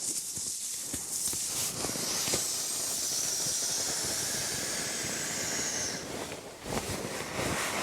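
Inflatable sleeping pad being pumped up by hand instead of with an electric pump: a steady rush of air into the valve from about two to six seconds in, then it stops. Light handling knocks come before and after.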